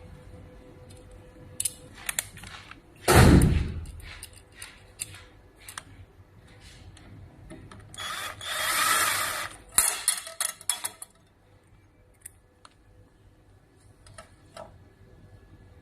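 Clicks and knocks of parts being handled during work on a laser machine's fume extractor, with one heavy thump about three seconds in. A small power tool whirs briefly at around eight seconds, followed by a quick run of clicks.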